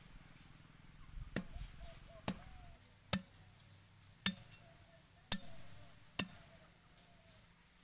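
A heavy knife chopping chicken feet on a wooden block: six sharp strikes, about one a second.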